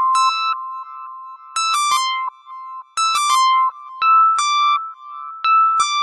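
Instrumental song intro: an electronic keyboard plays a high melody of short struck notes, each ringing briefly and fading, with no singing.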